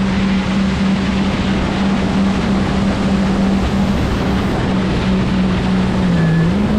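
Jet ski engine running at speed, a steady drone under the rush of wind and water spray. The engine note dips briefly about six seconds in and then climbs back.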